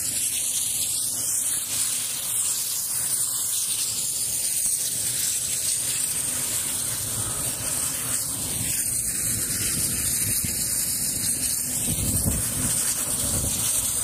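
Mil Mi-17 helicopters' turbine engines and rotors running on the ground: a steady high hiss and whine with wavering sweeps, and a low rotor rumble that swells about twelve seconds in.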